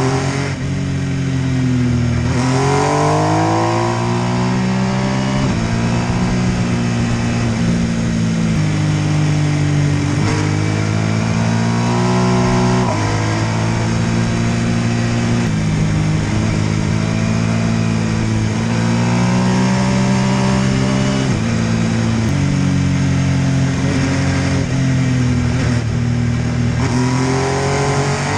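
MV Agusta F3 800's three-cylinder engine under hard riding. It accelerates again and again, its pitch climbing and then dropping in steps at each gear change, with short easings of the throttle between pulls.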